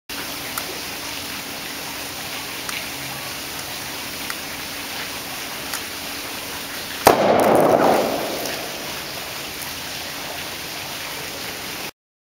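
A sealed plastic bottle of dry ice and water bursts with one sharp bang about seven seconds in, followed by a rush of noise that dies away over about a second; the carbon dioxide gas from the dry ice has built up enough pressure to split the bottle.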